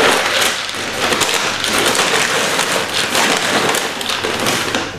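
Compressed wood-pellet litter rattling and pouring into a plastic measuring jug as it is scooped out of a paper sack: a dense, continuous patter of many small clicks.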